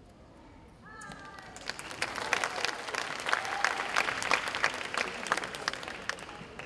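An audience clapping, building up about a second in and thinning out near the end.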